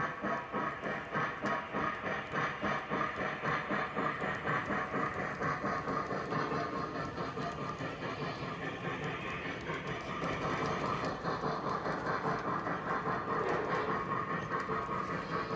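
Lionel O-scale Pennsylvania Railroad J1a steam locomotive model running on three-rail track, its wheels and the freight cars rumbling and clicking over the rails along with an even pulsing rhythm of about three or four beats a second.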